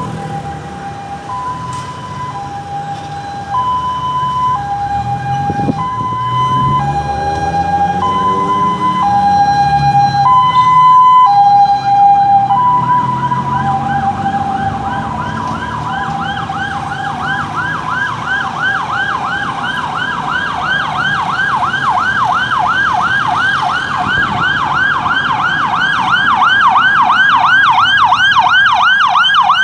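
Ambulance siren sounding a two-tone hi-lo wail, alternating between a higher and a lower note about once a second. About 12 s in it switches to a rapid warbling yelp, with the vehicle's engine and road noise underneath.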